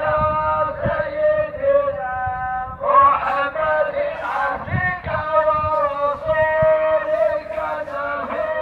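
A man chanting a supplication (du'a) in Arabic, in long, held, melodic phrases that bend up and down in pitch.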